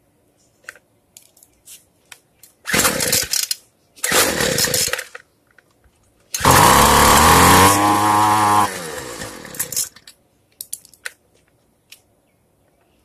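Two-stroke string trimmer engine being pull-started: two short bursts as it catches briefly, then it fires and runs at high revs for about a second and a half before the revs fall away and it dies out. The carburettor is still being tuned and the idle has not yet been turned up.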